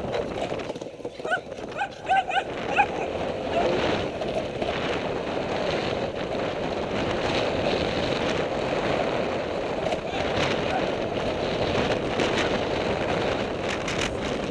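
A dog barking in a quick run of short, high barks for a couple of seconds, over the steady noise of a motorcycle riding along with wind on the helmet camera.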